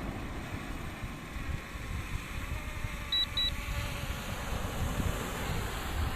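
Strong wind buffeting the microphone, a gusty low rumble throughout. About three seconds in come two short electronic beeps in quick succession.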